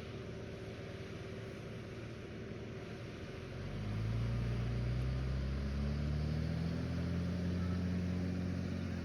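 Engine of a farm vehicle running under a low steady rumble, then about three and a half seconds in it comes up louder and its pitch climbs slowly as it accelerates, holding steady through the end.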